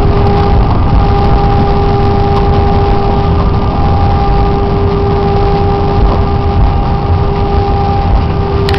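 Airbus A319-100 jet engines at low thrust, heard inside the cabin over the wing as the airliner rolls along the ground after landing: a steady, loud rumble with an even whine held at a few fixed pitches.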